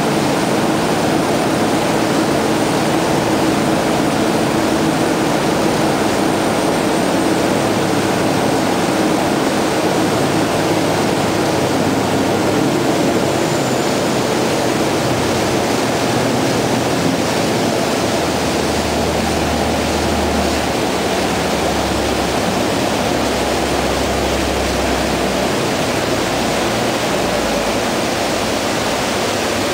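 Steady rush of churning wake water and air streaming past a high-speed ferry running at speed, over the drone of its Caterpillar 3412E V12 diesel engines.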